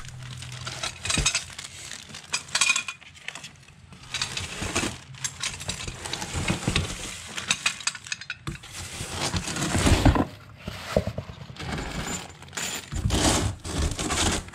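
Plastic bags and cardboard crinkling and rustling as boxed transom-wheel parts are unpacked by hand, with the bagged metal brackets and bolts clinking. There are a few dull thumps as parts are set down.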